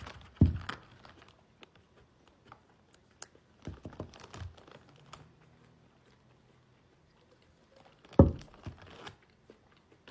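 Close-up eating sounds: chewing and crunching, with scattered crinkling of packaging. Two louder knocks stand out, about half a second in and about eight seconds in.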